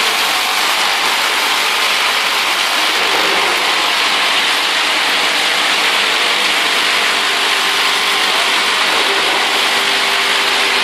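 Snack-production machinery running: a steady, loud mechanical hiss and rattle with a faint motor hum beneath it.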